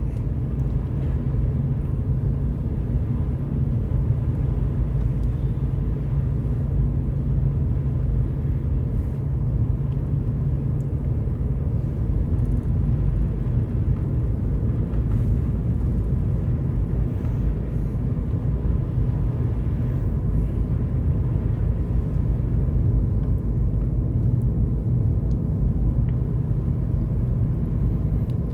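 Steady low rumble of a four-wheel-drive vehicle's engine and tyres, heard from inside the cabin while driving along at an even pace.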